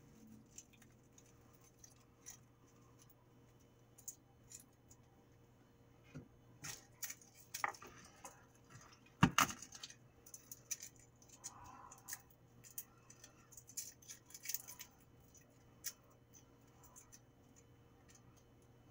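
Garlic cloves being peeled by hand: faint, scattered clicks and dry crackles of papery skin, with a sharper knock about nine seconds in.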